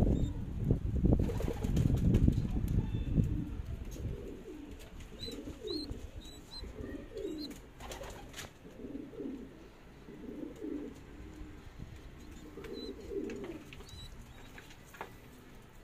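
Domestic pigeons cooing, a series of low rolling coos repeating every second or two from about five seconds in. The first few seconds carry a loud low rumble.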